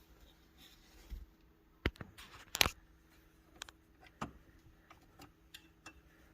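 A few sharp clicks and taps of hand work with a screwdriver on the shifter cable's fittings, the loudest about two and a half seconds in, then fainter ticks.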